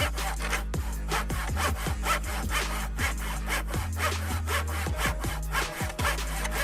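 Hand sawing: steady back-and-forth rasping strokes, about two to three a second, over background music with a deep bass line.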